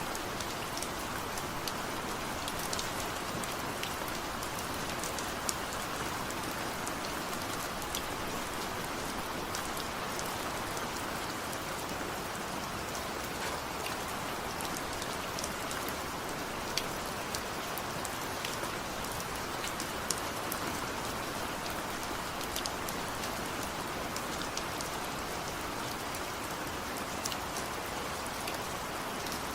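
Steady rain falling, a dense hiss of rainfall with many small drop ticks scattered through it.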